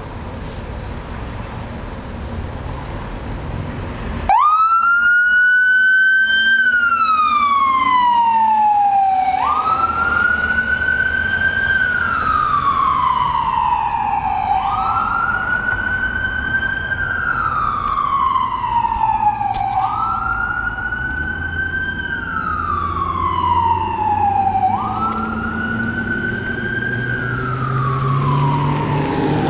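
Ford F450 ambulance's electronic siren switching on about four seconds in and sounding a wail: five times it climbs quickly, then slides slowly down in pitch, each cycle about five seconds long. A low rumble of a truck engine runs underneath.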